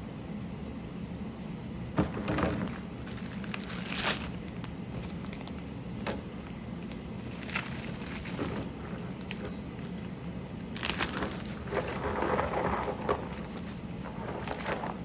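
Irregular plastic clicks and short rattling, rustling bursts from handling mechanical keyboard parts while switches and keycaps are changed, over a steady low hum. The busiest stretch comes about two-thirds of the way through.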